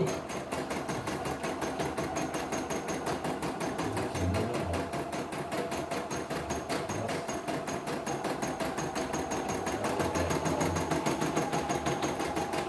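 CNY E960 computerised embroidery machine stitching a design, its needle striking in a fast, even rhythm.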